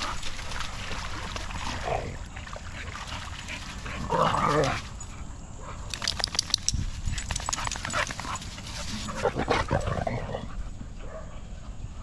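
Dogs barking during rough play, with a loud outburst about four seconds in and another about nine seconds in.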